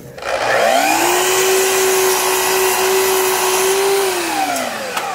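Festool Kapex sliding compound miter saw motor spinning up with a rising whine, running at a steady pitch as the blade cuts through a wooden piece, then spinning down with a falling pitch about four seconds in.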